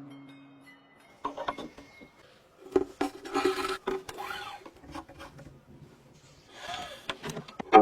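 A pipa being handled: a string note dies away at the start, then there are scattered light knocks and brief rubbing, scraping noises on the wooden instrument.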